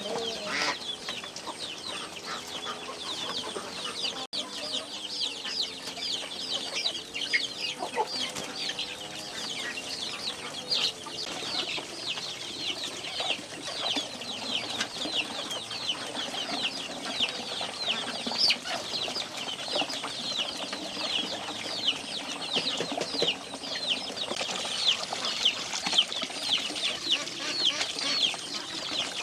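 A flock of chickens: a constant chorus of many high, short, falling peeps, as from chicks, with lower clucking from adult hens mixed in.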